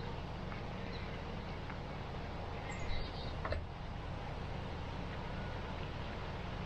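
Outdoor ambience: a steady low rumble of wind on the microphone, with a few faint bird chirps around three seconds in and a single click a moment after.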